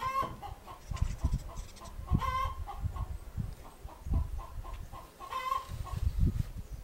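Chickens clucking in a steady run of short notes, with three louder drawn-out calls about two seconds apart, over low rumbling thumps.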